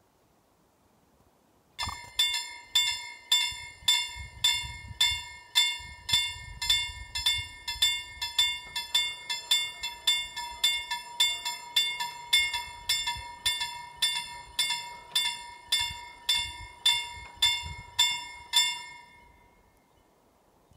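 Level-crossing warning bell ringing in quick, even strikes, about two a second, over a steady high tone, warning of an approaching train. It starts abruptly about 2 s in and stops near the end, once the barriers are down.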